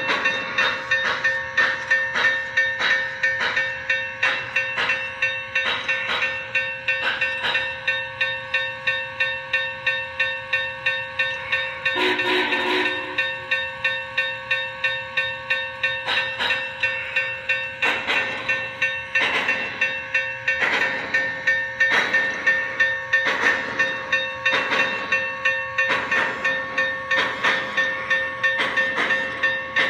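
MTH RailKing Imperial Union Pacific Big Boy O-gauge model steam locomotive's Proto-Sound 3.0 sound system chuffing steadily, about two to three chuffs a second, over the running train's steady hum. A short whistle blast comes about twelve seconds in.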